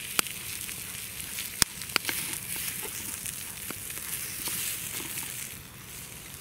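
Small wood cooking fire crackling: a few sharp pops over a steady hiss, with the hiss easing off near the end.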